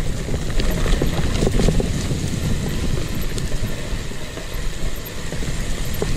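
Commencal Meta AM 29 mountain bike riding down a dry forest singletrack: tyres rolling over dirt and dry leaves under a steady rumble, with irregular knocks and rattles from the bike over bumps.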